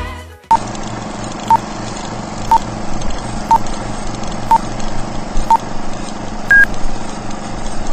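Film-leader countdown sound effect: a short beep once a second, six in all, then a higher, longer beep about six and a half seconds in, over a steady hiss.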